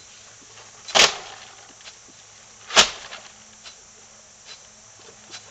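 A hoe chopping into grassy ground: two hard thuds about two seconds apart, with a few faint ticks between.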